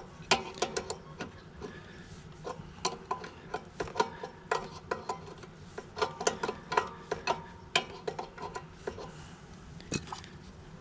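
Irregular metallic clicks and clinks of a wrench working on a pressure washer's unloader valve fitting, some with a brief ring, in uneven bunches.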